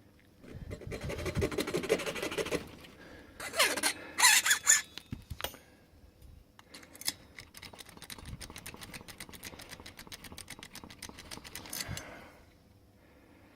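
Metal handwork on a padlock key blank: scraping and sharp metallic clicks, then a long run of quick, even rasping strokes for about five seconds as a small file cuts down the marked positions on the MS2 blank.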